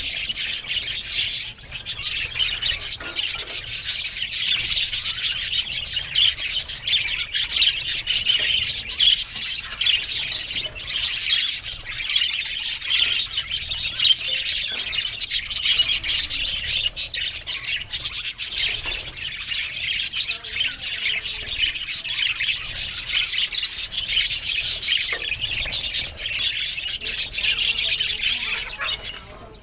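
A colony of budgerigars chattering and warbling together, a dense, continuous mass of high chirps from many birds at once.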